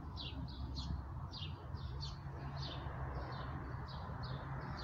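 Songbirds singing: a steady run of short, high chirps that fall in pitch, about three a second, over a steady low rumble.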